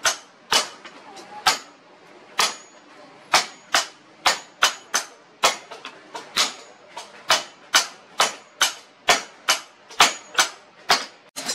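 Hand hammer striking red-hot leaf-spring steel on an anvil: a steady run of sharp metallic blows, about two a second, each with a short ring.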